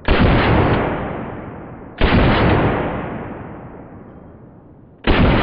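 Three single shots from a Zastava M92 PAP 7.62x39mm AK pistol fitted with an Aklys Defense muzzle brake, the first two about two seconds apart and the third about three seconds later. Each shot is followed by a long echo that dies away slowly.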